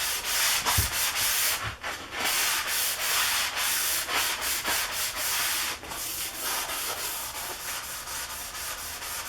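Sandpaper rubbed by hand in uneven back-and-forth strokes over an oiled, rusty cast-iron table saw top, scouring off the rust. The strokes get a little quieter in the second half.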